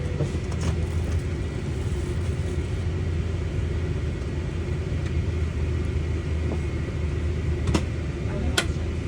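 Steady low rumble of a Boeing 777-300ER airliner cabin, with a faint thin steady whine above it. Two sharp clicks come near the end.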